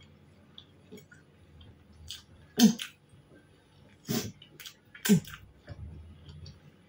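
Mouth sounds of a person eating: quiet chewing broken by a few short, sharp lip smacks, the loudest about two and a half, four and five seconds in.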